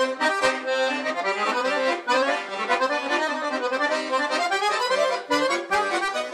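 Instrumental jingle music: a quick, lively tune of rapidly changing notes.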